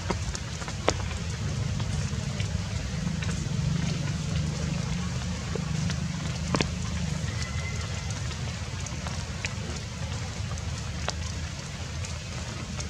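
Steady outdoor background noise with a low rumble and a few scattered sharp ticks.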